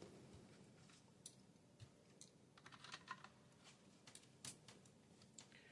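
Faint, scattered small clicks and taps of hard plastic being handled and pried at: the windows of a model passenger car's plastic body that will not pop out.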